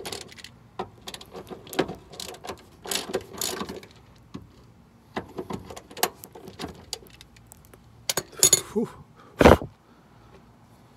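Hand ratchet with a 14 mm socket clicking in short runs as the tow hook bracket bolts are loosened, with some tool clatter. One louder knock comes near the end.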